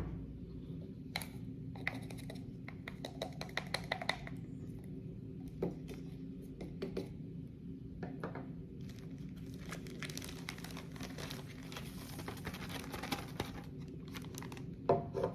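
Plastic clicking, scraping and crinkling as a handheld vacuum's dust container is opened and emptied of dirt and debris, over a low steady hum.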